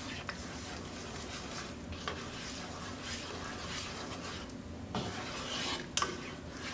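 A slotted spatula stirring and scraping through coconut-milk curry sauce in a stainless steel saute pan, blending in red curry paste. Several light knocks of the spatula against the pan come about two, five and six seconds in.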